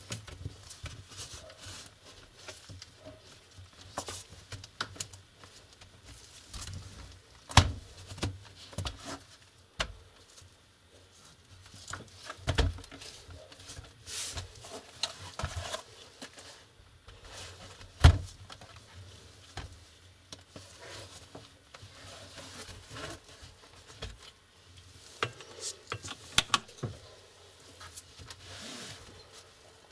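Handling noise from a Lenovo IdeaPad laptop's plastic case being moved, closed and opened: scattered clicks, taps and rubbing, with two sharper knocks, one about a quarter of the way in and one a little past halfway.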